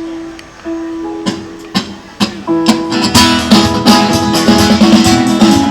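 Acoustic guitar music: a few held notes and single strums, then steady rhythmic strumming from about halfway through, as an action song starts.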